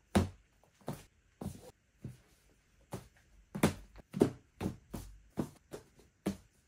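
Books being set down one after another onto a stack, about a dozen short thuds at roughly two a second, the loudest near the middle.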